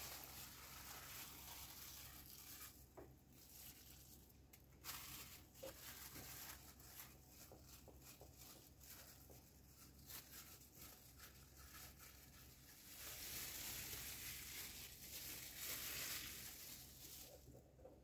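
Faint crinkling and rustling of a plastic sheet as tart dough is lifted on it, laid into a tart tin and the plastic is pressed and peeled away, with a few light ticks; the rustling grows louder for a few seconds near the end.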